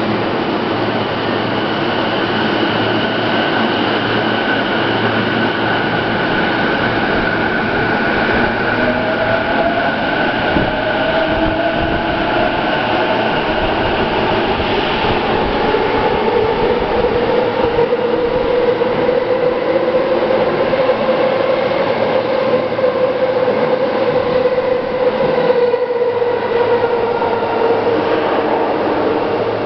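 Electric commuter train running at an underground station platform, wheels and body noise loud and steady, with the whine of its traction motors gliding slowly in pitch.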